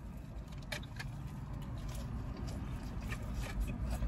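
Low steady rumble of a car heard from inside its cabin, with a few faint clicks and handling noises from eating a takeout meal.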